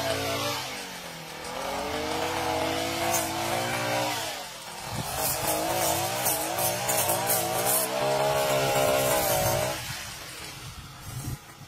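Brush cutter engine running at high revs. Its pitch repeatedly sags and recovers as it works through the grass, and the engine falls quieter about ten seconds in.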